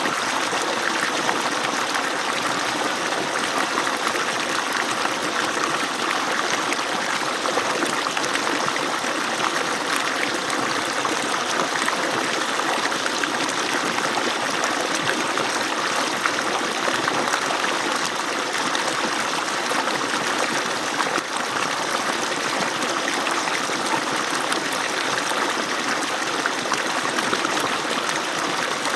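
Water pouring from the outlet of an agricultural irrigation pump (motor), a steady, unbroken rush of falling water.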